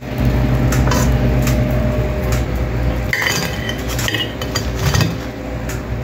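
Kitchenware clinking: a utensil knocking and tapping against a metal strainer and a plate, with a few short ringing clinks about halfway through, over a steady low hum that weakens about halfway through.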